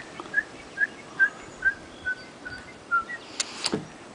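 A man whistling a barn swallow call by mouth: a quick, even run of short chirps, about two or three a second, sinking slowly in pitch. Two sharp clicks sound near the end.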